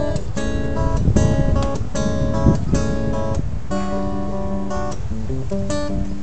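Acoustic guitar strumming a run of chords as the instrumental intro to a song, before the singing comes in.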